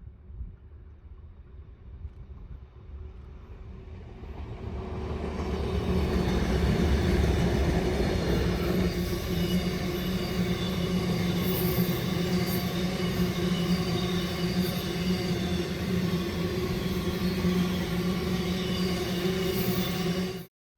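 A train approaches and runs past close by, building to a loud, steady rumble with a low engine drone. It cuts off suddenly near the end.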